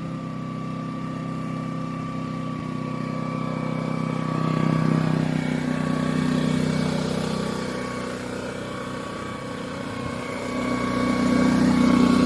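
Small portable petrol generator, a range-extender charger for an electric scooter, running steadily while charging the scooter's batteries. It has a low engine hum with a thin whine above it, and it grows louder about four seconds in and again near the end.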